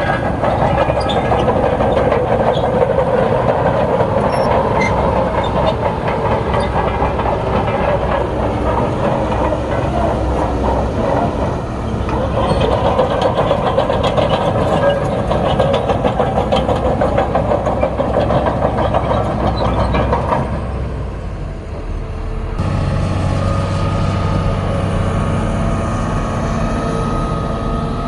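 Bulldozer working: diesel engine under load with the clanking clatter of steel crawler tracks. About 20 seconds in the sound eases off briefly, then gives way to a steadier engine drone with a clear hum.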